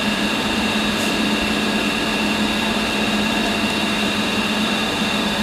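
Electro-discharge machine's dielectric pump running steadily while it fills the machining chamber: an even hum with a low drone and a high whine.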